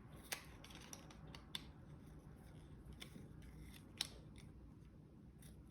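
Near silence broken by a few faint, scattered clicks of small metal spray gun parts being handled, the loudest about four seconds in.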